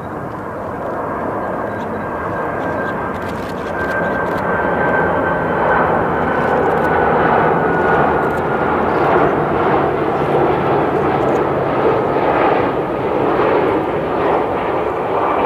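Boeing 767-300 airliner's jet engines on final approach for landing: a steady roar that grows louder about four seconds in as the plane passes close by, with a high whine that slowly falls in pitch.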